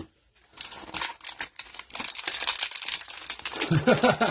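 Plastic wrapper of a Mosaic football cello pack crinkling and tearing as gloved hands rip it open: a dense run of quick crackles starting about half a second in.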